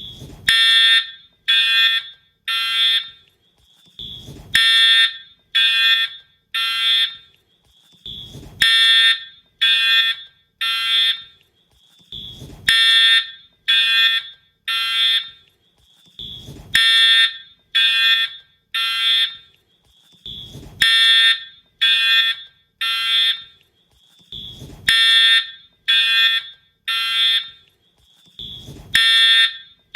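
Wheelock fire alarm horn sounding in the temporal-three evacuation pattern: three short, buzzy blasts about a second apart, then a pause, repeating about every four seconds. A short click comes just before each group of blasts.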